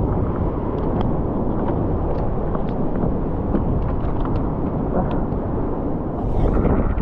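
Steady low rumble of wind buffeting the microphone at a rocky seashore, with faint scattered clicks throughout.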